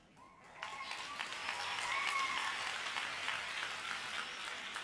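Audience applauding, swelling up about half a second in and slowly tapering off toward the end.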